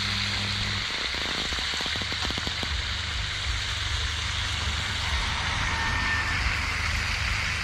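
Pigeon meat frying in a skillet over a wood fire: a steady, even sizzle, with a run of quick clicks and scrapes from the stirring utensil against the pan about one to three seconds in.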